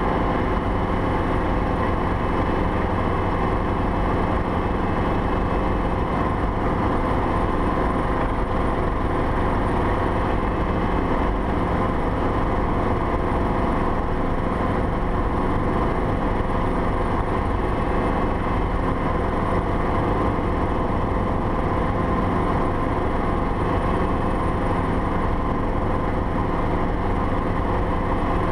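Schweizer 300CB helicopter's four-cylinder Lycoming piston engine and rotors running steadily under power as the helicopter lifts off and climbs, heard from inside the cockpit.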